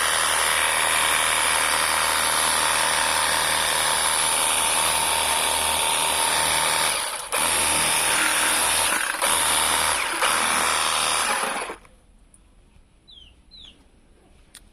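Portable pressure washer running, its motor and pump whining under the hiss of the water jet. It falters briefly a few times in the second half and stops about twelve seconds in.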